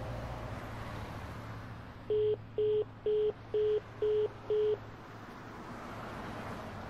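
Mobile phone call tones: six short beeps at one steady pitch, about two a second, heard through the phone while a call fails to connect.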